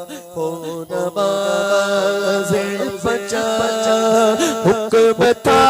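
A man sings a devotional Urdu manqabat into a microphone, holding long, ornamented notes that waver in pitch, with no instruments.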